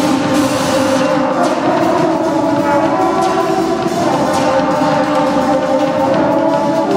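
Live drone/noise band playing loud: held droning tones that change pitch every few seconds, over a wash of drums and cymbals.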